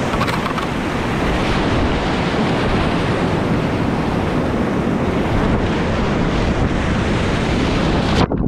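Whitewater rapids rushing and crashing right around a kayak, a loud, unbroken roar of churning water. It cuts off suddenly near the end.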